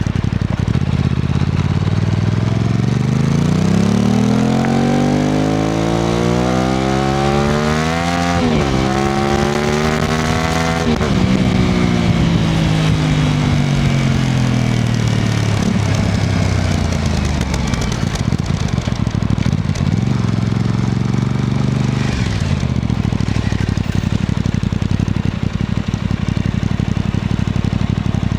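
Aprilia RS660 Extrema's parallel-twin engine pulling hard, its pitch climbing for several seconds. It dips sharply at a gear change about eight seconds in, climbs again, then falls away as the throttle is rolled off and the bike slows. It settles into a low, steady run with a brief rise and fall later on.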